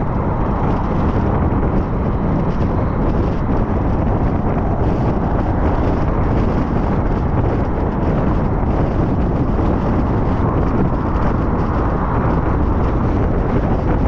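Steady road noise of a car driving along a highway: tyres on the road and wind rushing past, even and unchanging.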